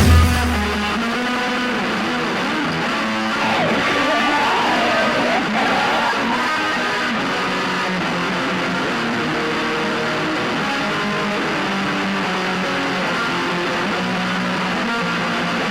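Drone music: a dense, sustained layer of held tones, with a wavering tone sweeping up and down a few seconds in. A loud, heavy passage cuts off at the very start.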